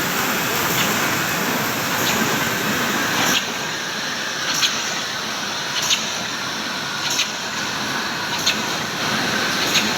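JB-800A full-automatic spot UV screen printing machine running: a steady mechanical whir with a sharp clack repeating about every second and a quarter.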